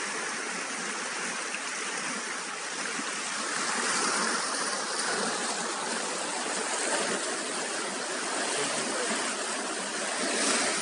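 Swollen, muddy stream in flood rushing through rapids between boulders: a steady rush of water that swells slightly a few times.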